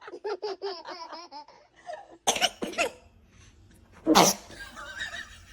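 Quick bursts of laughter, then two short, sharp bursts about half a second apart. About four seconds in comes a newborn baby's sneeze, the loudest sound.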